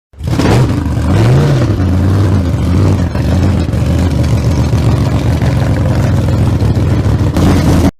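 A loud engine running and revving, its pitch rising and falling about a second in, then cutting off abruptly near the end.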